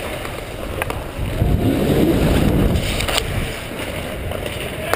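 Ice hockey skates gliding and scraping on the ice, heard from a camera worn by the skater: a steady rushing noise that swells for a couple of seconds, with a couple of faint sharp clicks.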